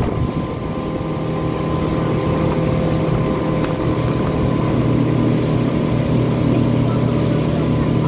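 Motorboat engine running steadily at speed while towing an inflatable tube, with water rushing past the hull. The engine note builds a little over the first second or two, then holds steady.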